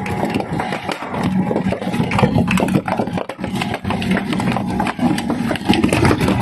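Shredding machine running with a steady low hum while material is fed through, giving a rapid, irregular run of cracks and crunches.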